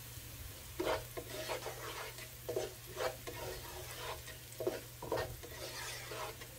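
Slotted spatula stirring and scraping chopped onion, garlic and ginger through hot oil in a nonstick wok, about two strokes a second starting about a second in, over a faint sizzle of frying.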